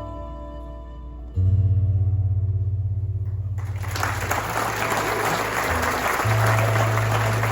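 Violin and guitar closing a piece on sustained notes, with a low note sounding about a second and a half in; about halfway through, an audience breaks into applause.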